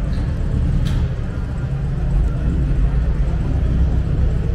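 Steady low rumble of a busy indoor exhibition hall, with faint distant voices and a single click about a second in.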